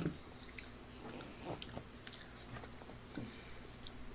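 A man chewing a mouthful of food close to the microphone, with soft mouth sounds and scattered small clicks.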